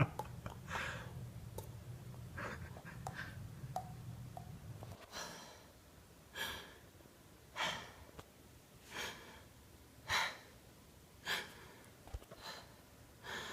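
A low steady hum with a few small clicks, then about a person making short rhythmic breathy puffs close to the microphone, roughly one every second and a bit, as a mouth-made sound effect.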